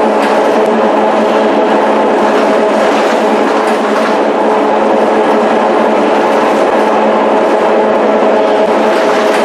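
Scania K230UB city bus heard from inside the passenger cabin while under way at a steady speed: a loud, even engine and driveline drone with a few steady tones and road noise, and no gear change.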